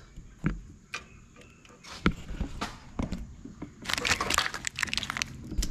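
Handling noise around the truck's firewall: scattered light clicks and knocks, then a stretch of dense crackling and rustling about four seconds in, as a hand moves the corrugated plastic wiring loom.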